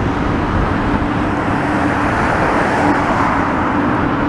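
Komatsu 210 hydraulic excavator's diesel engine running with a steady hum, with road traffic passing.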